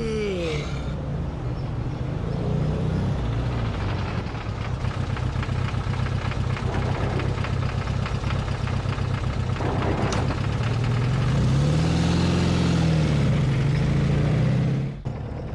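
A yawn trails off, falling in pitch, in the first second. Then comes a steady low engine-like hum, which swells and dips in pitch near the end and cuts off suddenly.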